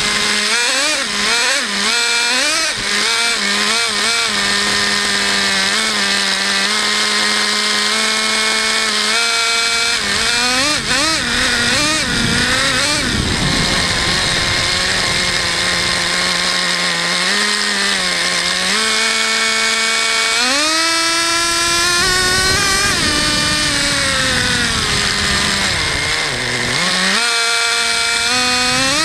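Traxxas Jato 3.3 nitro RC car's small two-stroke nitro engine running at high revs, its pitch rising and falling with the throttle, with a steep climb about twenty seconds in and a brief dip near the end.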